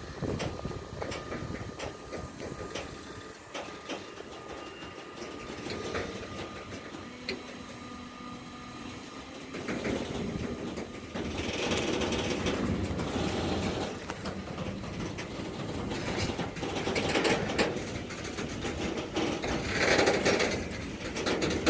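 Freight train of container and tank-container wagons rolling past slowly as it departs, with wheels clicking and clanking over the rail joints. It grows louder about halfway through as the train picks up speed.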